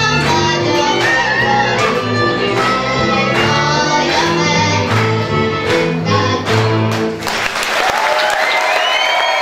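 Live folk string band, a fiddle over a bowed bass keeping a steady beat, playing a dance tune that stops about seven seconds in. Applause and voices take over at the end.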